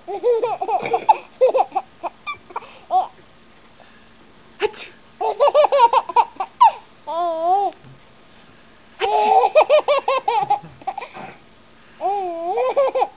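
Six-month-old baby laughing in repeated bouts, with short pauses between them, in reaction to a sneeze.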